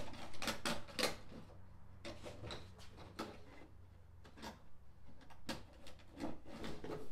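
Irregular short scrapes and clicks of a power wire and its metal hanger being handled and pulled through a rubber firewall grommet, over a faint steady low hum.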